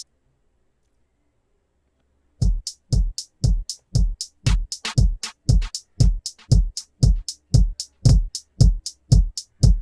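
Drum-machine loop playing through a compressor plugin. It is silent for about the first two seconds, then comes in with steady hits about two a second, each a deep kick with a bright hiss on top.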